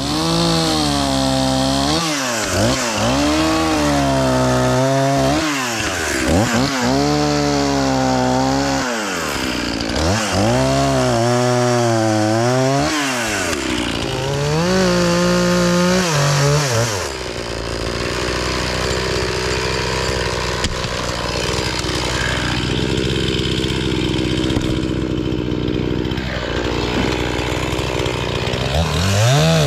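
Two-stroke chainsaw cutting wood into firewood lengths. Its engine revs rise and fall over and over for the first half, then it runs more steadily at a lower pitch, and it revs up again near the end.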